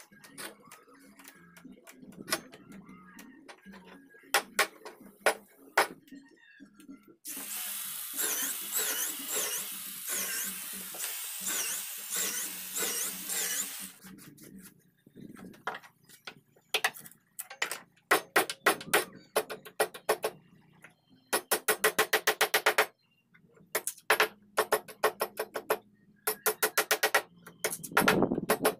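A hammer strikes a chisel cutting into a teak door rail in runs of quick, sharp taps. Earlier, there are a few seconds of steady hissing noise from work on the wood.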